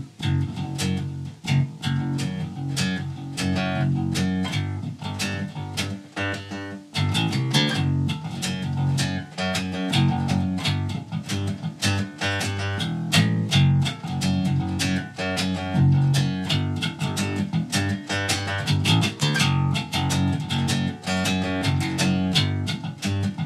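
Electric bass guitar, a Jackson, played fingerstyle: a fast riff of rapid plucked notes.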